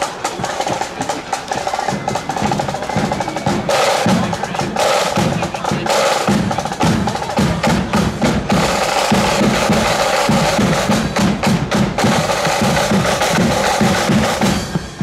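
Marching band's side drums and bass drum playing a marching beat, with fast snare rolls over a steady bass drum pulse.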